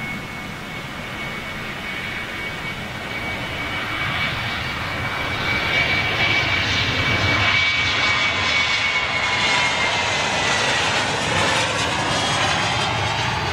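Boeing 737 jet engines at takeoff power on the takeoff roll: a broad roar with a steady high whine, growing louder over the first half as the airliner approaches. Near the end the whine drops in pitch as the jet passes and lifts off.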